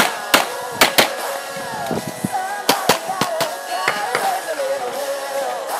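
Handgun shots fired in quick pairs, about eight in all, sharp cracks over background music with a singing voice.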